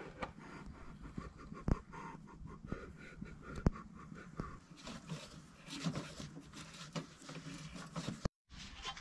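Faint scattered clicks, light knocks and rustling of hand work on the underside of a van, with a few sharper taps standing out.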